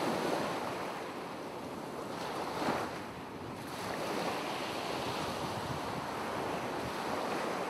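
Ocean surf sound effect: a steady wash of waves that swells and eases slowly, with a slightly louder surge a little under three seconds in.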